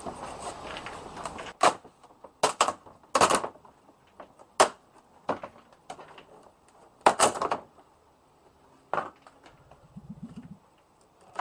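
Perspex (acrylic) sheet being flexed and snapped apart along a jigsaw cut that the blade's heat had fused back together, freeing the cut-out window pane. It gives a string of about ten sharp, irregular cracks and knocks.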